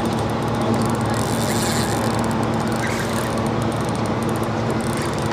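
Steady low mechanical drone under wind and water noise.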